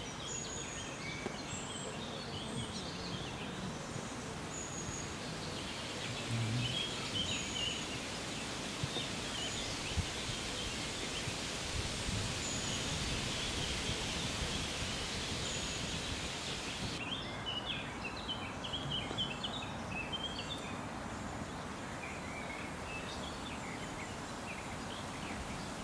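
Outdoor pond ambience: a steady noisy hiss with scattered short, high bird chirps and peeps throughout. The background changes abruptly about 17 seconds in.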